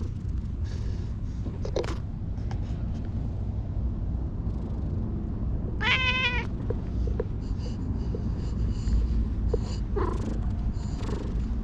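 Tabby-and-white stray cat meowing once, a short wavering meow about halfway through, over a steady low rumble.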